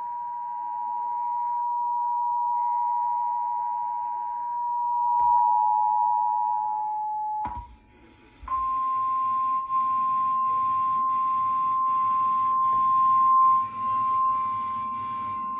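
Emergency Alert System attention signal on a cable TV channel: a steady two-tone alarm for about seven and a half seconds, cut off abruptly. After a brief break, a single steady tone slightly higher in pitch follows, with faint noise underneath, leading into a severe weather alert.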